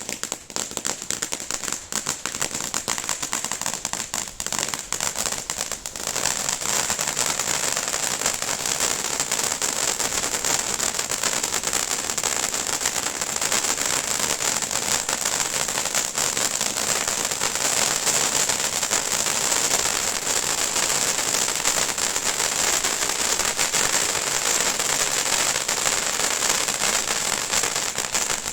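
Large firework fountain with crackling stars burning: a steady hiss under dense, continuous crackling pops, growing louder about six seconds in.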